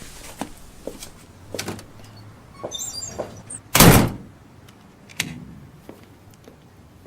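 Scattered small clicks and knocks, a brief high clinking about three seconds in, then one loud heavy thud just before four seconds, followed by a few fainter knocks.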